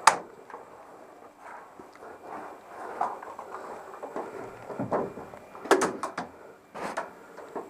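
Sharp cracks of airsoft gunfire: one right at the start, a quick cluster of three just before six seconds in, and another about a second later, with low rustling in between.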